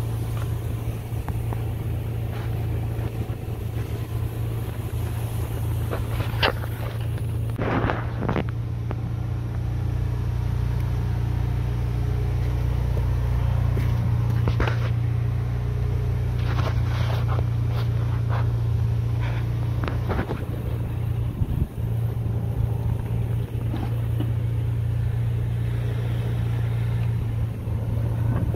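A motor running steadily with a constant low hum, with a few short clicks and knocks over it.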